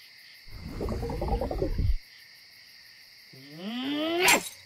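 Cartoon sound effects. A low rumbling noise lasts about a second and a half, then stops. Near the end a pitched sound rises steadily and ends in a sharp hit.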